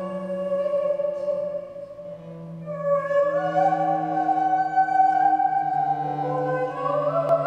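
Slow music of long held notes: a bowed low string instrument sustains deep notes under a higher, wavering melody line that moves to a new pitch every second or two.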